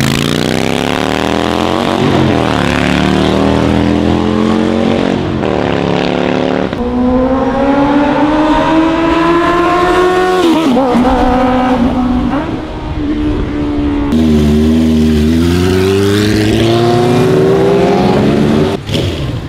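Motorcycles pulling away one after another, each engine's pitch climbing, dropping at a gear change and climbing again. The first is a Harley-Davidson Sportster V-twin, followed after abrupt changes by other bikes accelerating off.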